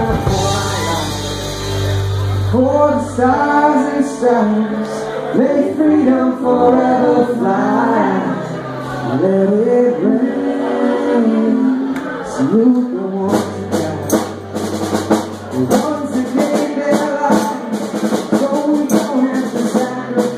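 Live band playing: electric guitars, bass and drums under singing voices. The bass drops out a few seconds in and returns briefly midway.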